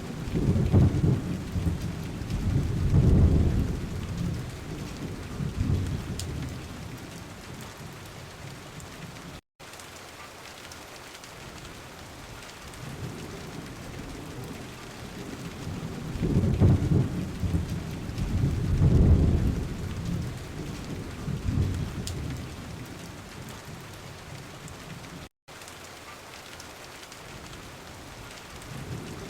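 Steady rain with two long, low rolls of thunder, one in the first few seconds and another about a third of the way from the end. The sound cuts out for an instant twice, where the recording is looped.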